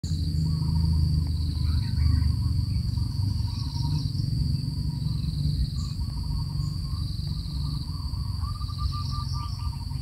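Steady high-pitched insect drone with faint, short bird calls repeated now and then, over a loud low rumble.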